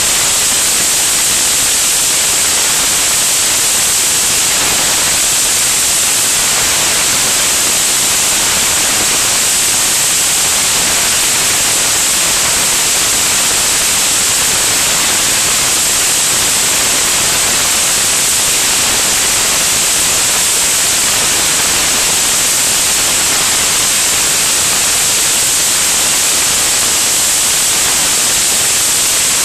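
Loud, steady rushing hiss of airflow over a camera mounted under the wing of an aircraft in flight. The hiss is strongest in the highs, and no engine note stands out.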